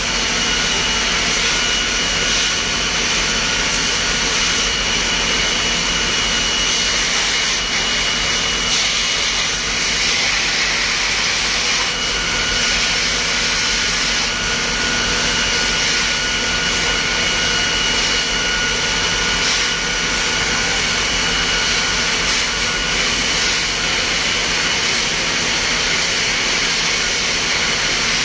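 Steady loud rushing hiss of fire-fighting hose water and pump running, with a faint high whine held through it and a second, lower whine joining about twelve seconds in.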